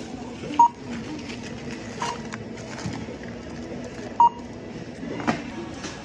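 Checkout barcode scanner beeping three times as grocery items are scanned, each beep short and at one pitch. A knock of goods being set down comes near the end, over the steady hubbub of the store.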